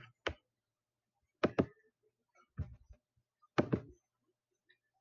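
A few sharp clicks and taps from working the computer as the slideshow is closed, some in quick pairs about a second and a half and three and a half seconds in, with silence between them.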